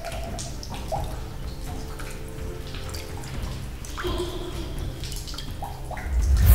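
Horror sound design: a low drone under scattered drips and clicks, with a brief held tone about two-thirds of the way in, swelling sharply near the end into a jump-scare hit.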